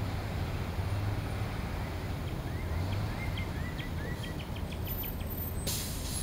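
A low steady rumble, with a small bird giving a quick string of short chirps from about two to five seconds in, and a brief hiss near the end.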